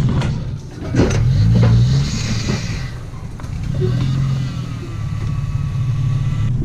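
Vehicle engine running while driving, a steady low hum that rises and falls in pitch with the throttle, with a few sharp clicks near the start.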